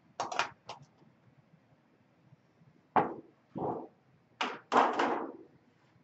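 Thin sheet metal being bent into a pan corner with hand seamers: a handful of short clunks and rattles from the sheet. The loudest are a sharp thunk about three seconds in and a longer rattle of the sheet near the end.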